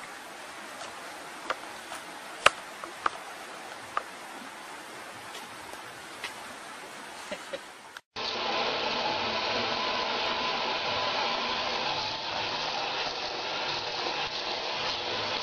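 For the first half a faint steady hiss with a few sharp clicks; then, after a sudden cut, a tap running steadily into a bathroom sink.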